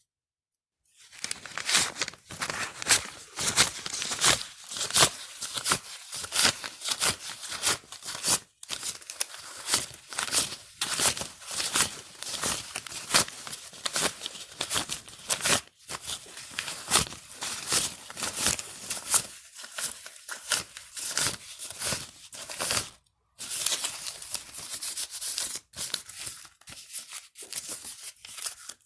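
Coins being counted out by hand: a fast, continuous run of small clicks and clinks, broken by three short gaps.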